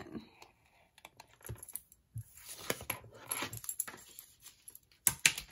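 Small paper snips cutting around a stamped image in cardstock (fuzzy cutting): quick, irregular snipping clicks, with a cluster of sharper clicks near the end.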